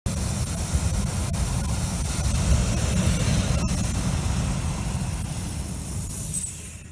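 Hot air balloon's propane burner firing in one long blast, a steady roaring hiss that eases slightly near the end.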